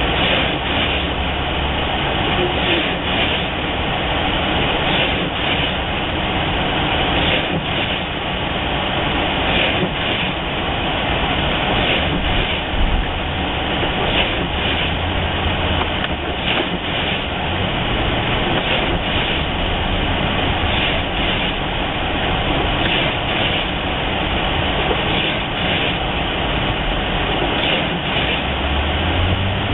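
Steady road noise inside a car driving through snow and slush: a constant rush of tires and engine hum, with light knocks every second or two.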